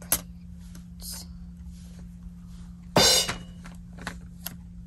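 Small plastic toy accessories clicking and knocking as they are handled, with one louder clatter about three seconds in, over a low steady hum.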